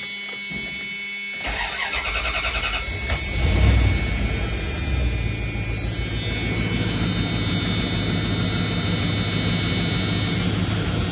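1999 Dodge van's engine cranked by the starter for about two seconds, catching with a brief surge and settling into a steady idle. It is started on fresh oil after an oil change, with the oil pressure still coming up.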